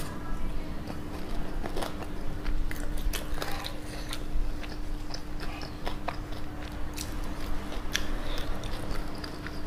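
Close-miked chewing of spicy fried chicken coated in creamy sauce: a run of scattered short crisp clicks and mouth noises, picked up by an earphone's inline microphone.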